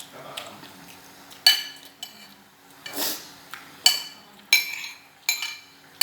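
Cutlery clinking against a dish while eating: about five sharp, ringing clinks, with a short scrape about three seconds in.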